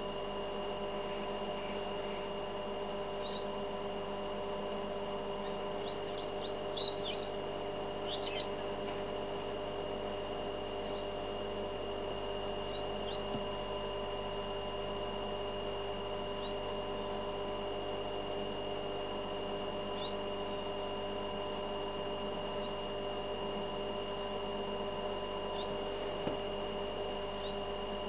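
Brown-headed parrot giving short, clear whistles: a cluster about six to eight seconds in, then a few single calls spread out later, over a steady background hum.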